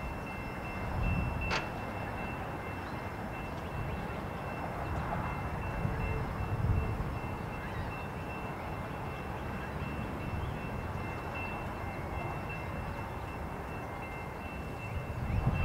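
CN freight train rolling away along the track: a steady low rumble and clatter of freight car wheels on rail, with a steady high-pitched ringing over it and a single sharp clank about a second and a half in.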